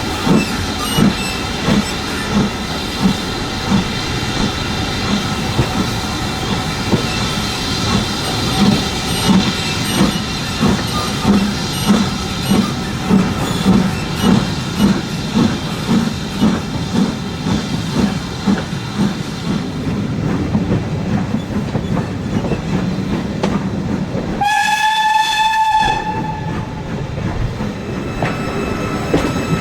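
Steam locomotive working at low speed, its exhaust beats coming evenly about two a second, then giving way to a steadier running rumble. Near the end a steam whistle sounds once, for about a second and a half.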